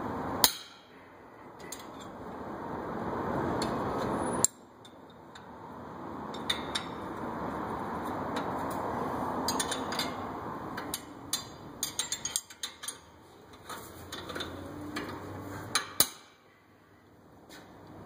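Metal-on-metal clanks and clicks from a long wrench worked on the 17 mm caliper bracket bolts of a Subaru Outback front brake. Three sharp, loud knocks come just after the start, about four and a half seconds in, and near the end, and a quick run of lighter clicks falls about two-thirds of the way through.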